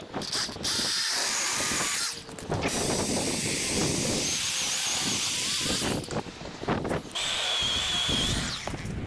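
Powered saw cutting through a tree branch, running in several stretches with short pauses, with a thin high motor whine at times.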